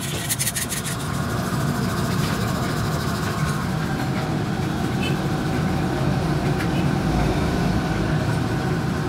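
A steady low rumble, like machinery running, with a few sharp clicks in the first second.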